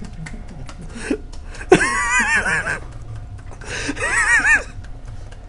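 Two bursts of high-pitched laughter, each a quick run of rising-and-falling 'ha' sounds, the second about two seconds after the first, with a few faint clicks before them.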